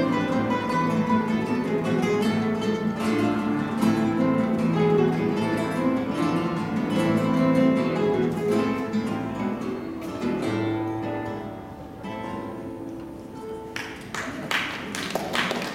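An ensemble of acoustic guitars playing the closing bars of a piece, a low final chord ringing and fading away about twelve seconds in. Audience applause starts near the end.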